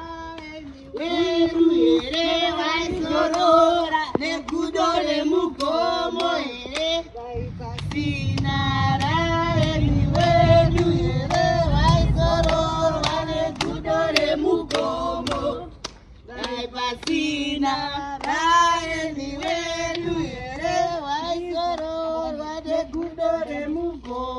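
A group of women singing a song together in high voices, with hand clapping, pausing briefly about two-thirds of the way through.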